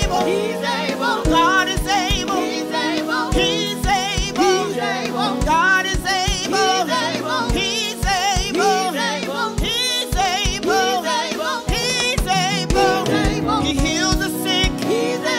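Gospel song: a singer's voice with heavy vibrato over sustained instrumental chords and a recurring low beat.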